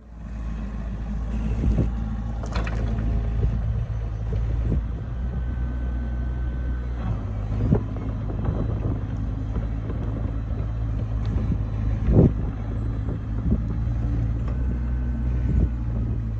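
Excavator's diesel engine running steadily, with a few sharp knocks and clunks as logs are grabbed and dragged, the loudest about two thirds of the way through.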